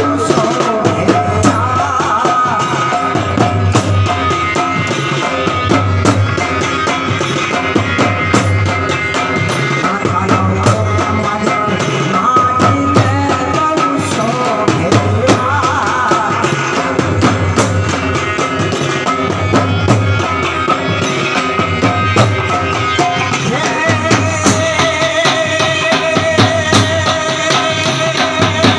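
Amplified garba folk music with a steady drum beat and a held melody line.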